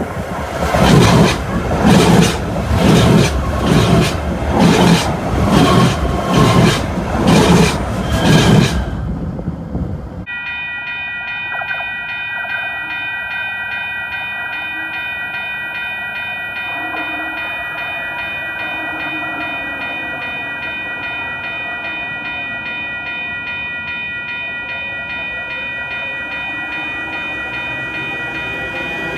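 A Kinkisharyo P3010 light-rail car running directly over the microphone, its wheels clacking in a loud beat about once a second for roughly nine seconds. Then the sound changes abruptly to a steady, high, rapidly pulsing set of tones.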